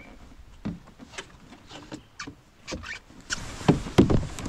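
A canoe getting under way: the paddle knocks against the canoe's hull and gunwale and splashes in the water, a scatter of sharp knocks and clicks, the two loudest thumps about three and a half and four seconds in.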